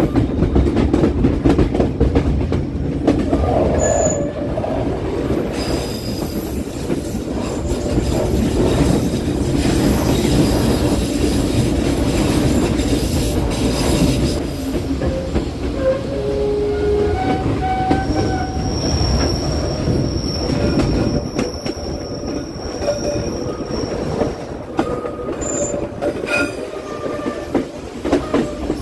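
Passenger train running on tight mountain curves, its wheels squealing against the rails in thin, high steady tones that come and go over the continuous rumble and rattle of the carriages.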